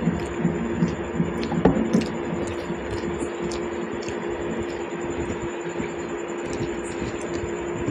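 Soft wet squishing of rice and dal being mixed and eaten by hand, with a few small clicks early on, over a steady electrical hum.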